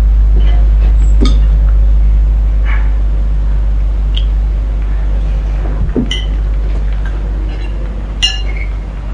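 Cutlery clinking against dinner plates, about five separate clinks a second or more apart, over a steady low rumble.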